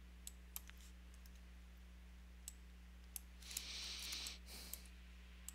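Scattered sharp computer mouse clicks, about seven, with a short rustling noise about three and a half seconds in, over a steady low hum.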